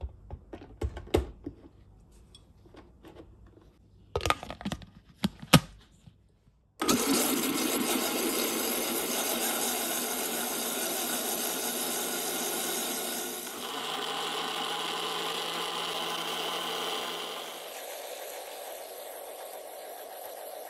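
A few sharp knocks and clicks, then a Tefal Blendforce glass-jar blender's motor starts suddenly about seven seconds in and runs loud and steady. Its tone changes about halfway through, and it runs quieter near the end.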